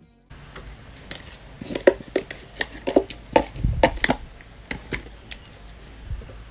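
Yellow slime being tipped from a plastic cup into a glass bowl and handled. It makes irregular sticky clicks and wet pops, several a second, with soft thumps, loudest around the middle.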